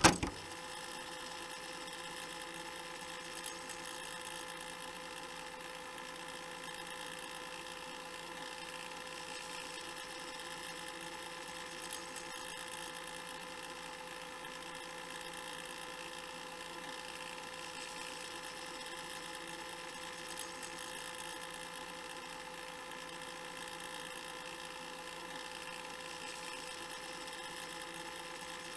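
Cassette player on fast-forward: a loud click at the very start, then the motor and tape reels winding with a steady whir made of several constant tones, with a few faint ticks.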